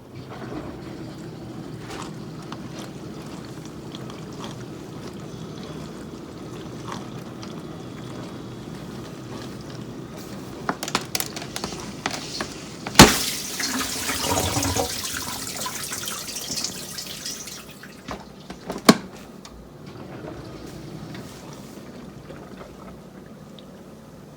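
Miele dishwasher running: a steady hum with water swishing inside. About halfway through, a sharp click is followed by a few seconds of louder splashing; a second click comes a few seconds later and the hum drops away. This fits the circulation pump cutting out early, which the owner puts down to a pump fault.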